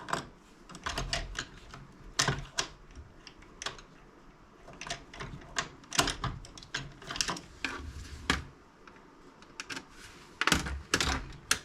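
Small screwdriver tip clicking and scraping against a laptop case while digging out the small brass threaded inserts (nubs): irregular sharp clicks throughout, with a quick cluster of them near the end.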